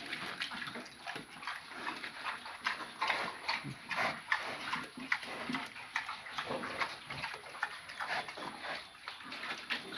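Pigs grunting and snuffling: many short, irregular noises overlapping.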